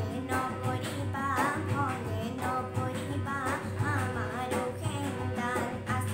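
A girl singing an Assamese song, her voice bending and ornamenting the melody over held harmonium notes, with tabla strokes keeping the rhythm.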